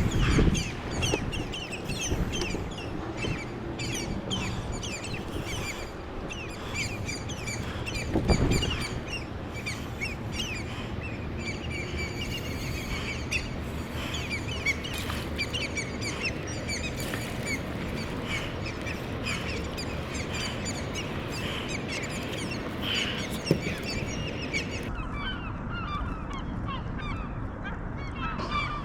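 Seagulls calling, many short squawks one after another, over a steady background rush, with a brief thump about eight seconds in.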